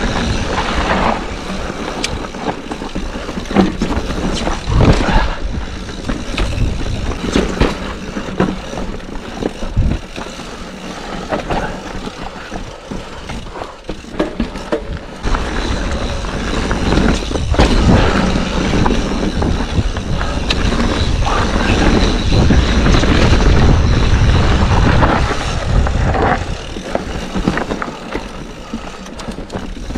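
Yeti mountain bike riding down rocky singletrack: tyres crunching over dirt and loose rock, with frequent knocks and rattles as the bike hits rocks. A steady low rumble of wind runs over the camera microphone.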